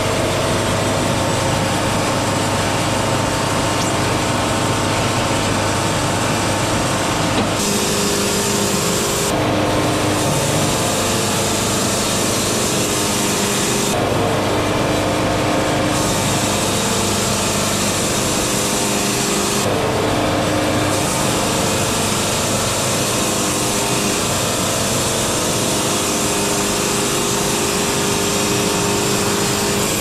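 Wood-Mizer LT70 bandsaw sawmill running under its diesel engine, the band blade sawing boards off a hardwood cant with a steady, loud hiss over the engine drone. The hiss thins briefly a few times.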